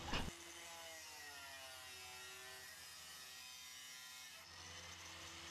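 Angle grinder cutting sheet steel, a steady whine whose pitch drops and then settles as the disc works through the metal.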